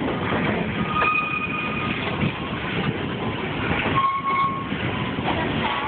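Steam excursion train running along the track, heard from aboard: a steady rumble and rattle of the moving cars, with two brief high tones, about a second in and again about four seconds in.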